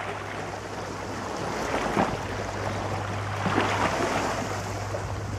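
Steady rushing noise with a low hum underneath, and a short knock about two seconds in, with a few fainter ones near four seconds.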